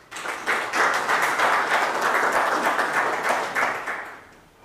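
Audience applauding, starting abruptly and dying away about four seconds in.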